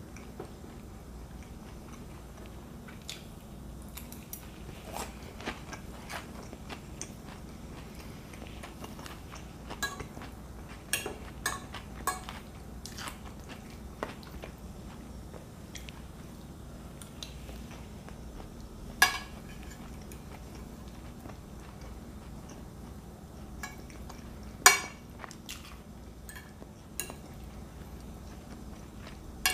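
A fork clicking and scraping on a plate while a mouthful of steak salad is chewed, in scattered short clicks with two louder clinks about two-thirds of the way through and again near the end, over a faint low hum.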